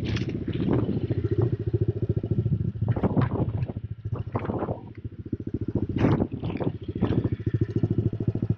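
Honda CRF110 pitbike's small single-cylinder four-stroke engine idling with a fast, even putter. Scattered crackles and rustles run over it.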